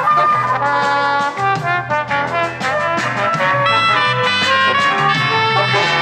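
Instrumental music: a brass-toned melody of held notes over a moving bass line.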